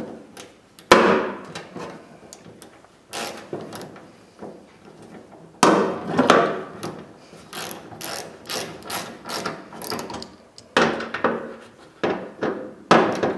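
Hand ratchet with a T40 Torx bit clicking in quick runs of strokes as it drives the tailgate handle's screws in, with a sharp knock about a second in.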